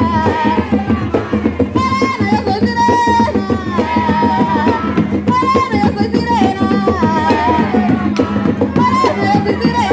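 Panamanian tamborito: a singer's voice in short repeated phrases over a steady, driving beat of folk drums.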